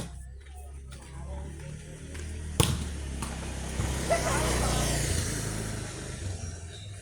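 Motor vehicle engine running with a low hum, and a passing-vehicle swell of noise that builds and fades, loudest about four to five seconds in; a sharp knock about two and a half seconds in.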